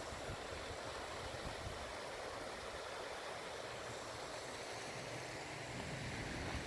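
Steady rushing of a rocky mountain stream. A low rumble comes in near the end.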